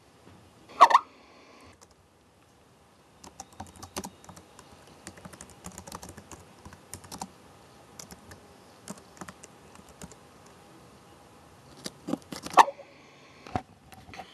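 Typing on a laptop keyboard: a long run of uneven key clicks that gets louder and faster near the end. About a second in there is one short, sharp, louder sound.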